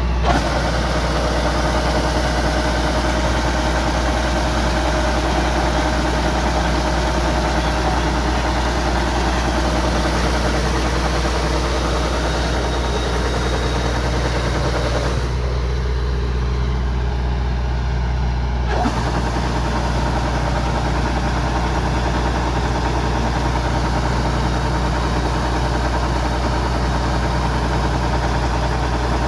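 Kubota DC-105X combine harvester's diesel engine running steadily with a constant low hum. Its higher hiss drops away for a few seconds midway.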